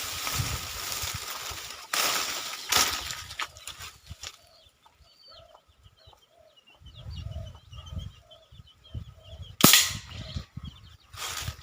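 Homemade spray-gas-powered PVC toy gun firing a single shot near the end, a sharp crack. In the first seconds there is a stretch of hissing and shorter rustling bursts.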